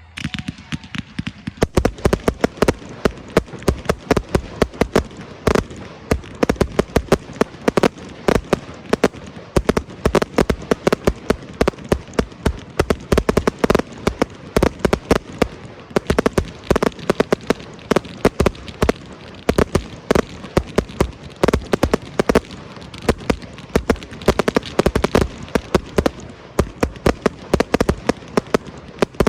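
Aerial fireworks going off in a rapid, continuous barrage, many sharp bangs a second with no let-up.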